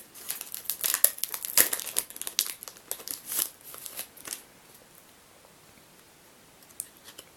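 Foil Pokémon booster pack wrapper crinkling and tearing as it is opened by hand. The crackling stops about four seconds in, leaving only a few faint clicks.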